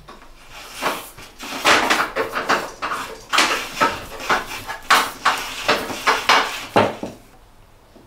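Electrical cable being fed up through a hole in the ceiling: irregular rustling and scraping of the cable sheath against the hole, with small knocks, dying away near the end.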